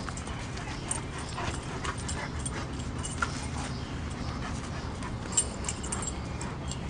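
Two Great Danes tussling at play over a plush toy, making scattered short scuffling noises, with one sharper sound about five seconds in.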